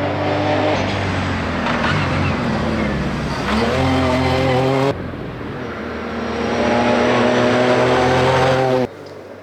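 Ford Fiesta R2T rally car's turbocharged three-cylinder engine under hard use: the revs fall, then climb sharply and hold high, then climb again. The sound cuts off abruptly twice.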